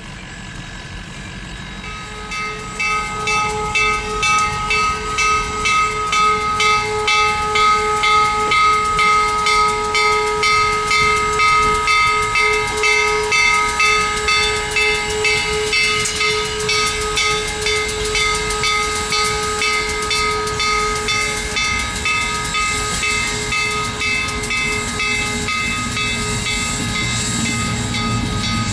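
Steam locomotive FEC 148 working a passenger train, its exhaust beating in a steady pulsing rhythm while its restored Nathan six-chime steam whistle sounds one long held chord. The whistle fades near the end as the cars roll past.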